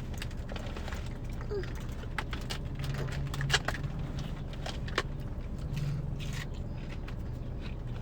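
Eating sounds: bites and chewing of crunchy fried food, with sharp crunches about three and a half and five seconds in. A steady low hum runs underneath, inside a car.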